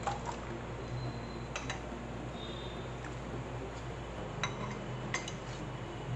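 Steel ladle clinking a few times against a glass mixing bowl while scooping a thick milky mixture, light separate clicks over a low steady hum.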